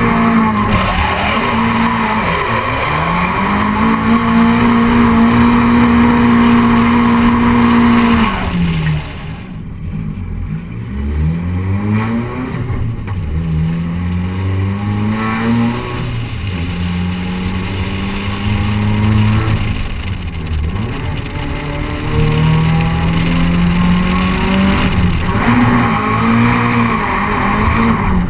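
Nissan 240SX (S13) drift car's engine revving hard. It is held high for about four seconds, then drops off and rises and falls again and again in shorter pulls as the throttle is worked through the drift.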